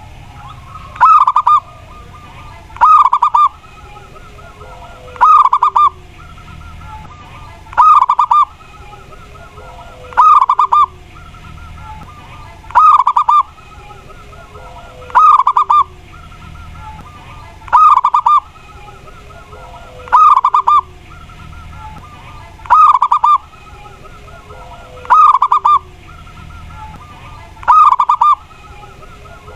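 Zebra dove (perkutut) of the local Javanese type singing its cooing song: a short burst of quick, rolling coos, repeated about every two and a half seconds.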